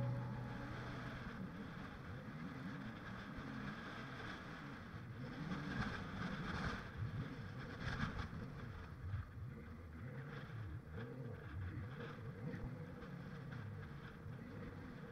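Snowmobile engine running, its pitch wavering up and down as the revs shift while it travels.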